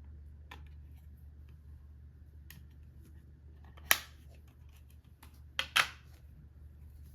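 A few sharp clicks from small objects being handled: faint ones early, the loudest about four seconds in, then a quick pair about two seconds later, over a steady low hum.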